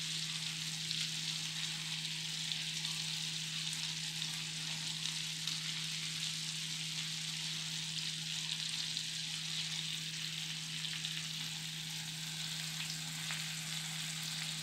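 Egg masala gravy sizzling in a metal kadhai over the flame: a steady frying hiss dotted with small pops and crackles, with a steady low hum underneath.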